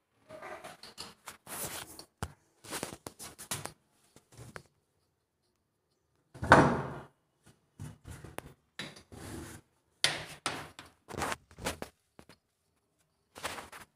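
Irregular knocks, scrapes and rubbing of handling, from hands moving flexible hoses and pipe fittings under a jacuzzi bath tub, with one louder thump about six and a half seconds in.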